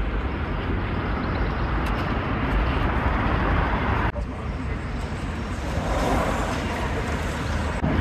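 Steady outdoor street noise with road traffic, an even rush without clear voices, broken by abrupt cuts about four seconds in and again near the end.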